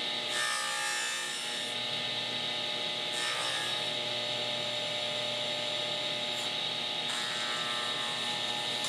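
Table saw running steadily, its blade tilted to 30 degrees and set barely above the table, as a wooden piece is run back and forth across it to clean up a rabbet. The blade cuts the wood in several short scraping passes: about half a second in, near three seconds, and again through the last two seconds.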